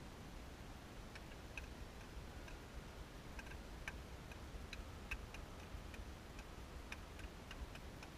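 Faint, irregular clicks, a few a second, starting about a second in, over a steady low rumble.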